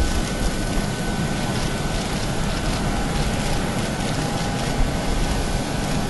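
Steady roar of a parked jet airliner running on the apron, with a thin, steady whine over the rumble.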